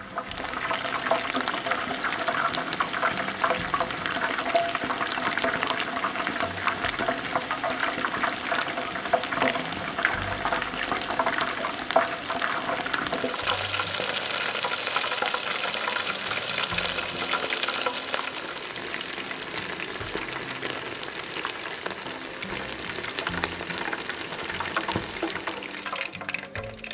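Chicken pieces deep-frying in hot oil in an electric deep fryer's wire basket: a steady, dense crackling sizzle.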